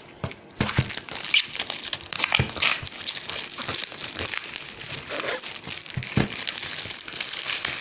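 Plastic shrink-wrap being torn and peeled off a DVD box set, crackling and crinkling irregularly throughout.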